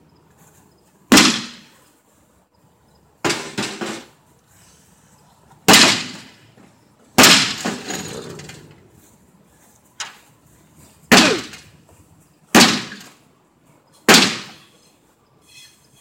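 Baseball bat striking a microwave oven's sheet-metal casing: about eight hard whacks a second or two apart, each ringing out briefly, one about seven seconds in ringing longer.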